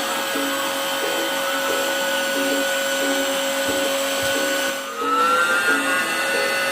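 Samsung PowerGun cordless stick vacuum running with a steady high motor whine and air hiss. About five seconds in it dips briefly, then its pitch rises as the motor speeds up again.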